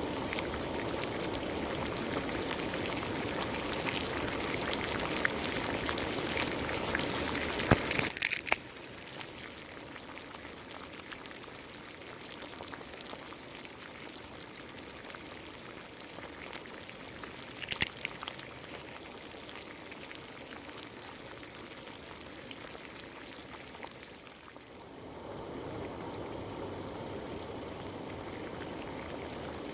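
Water pouring and bubbling in a cooking pan of Maggi noodles: a steady rush for the first eight seconds, a couple of brief clatters, then quieter bubbling that swells up again near the end.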